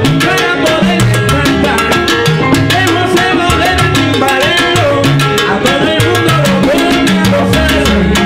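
Live salsa orchestra playing at full volume: Latin hand drums and timbales keep a steady beat over a moving bass line, with a brass section on top.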